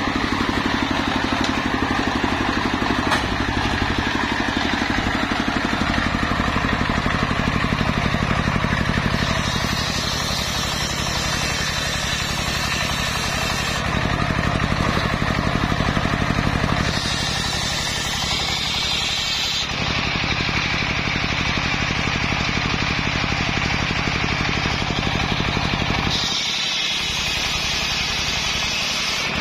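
Large belt-driven circular saw bench running steadily, its blade ripping lengthwise through sengon logs. The cutting noise changes several times as the wood is fed through in separate passes.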